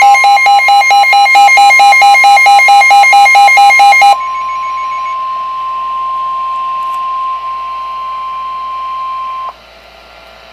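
NOAA Weather Radio warning alarm: a steady single tone near 1 kHz, the 1050 Hz warning alarm tone that comes before a warning. For the first four seconds a loud electronic beeping alarm, about five beeps a second, sounds over it; the tone then runs on alone and stops about a second before the end, leaving faint radio hiss.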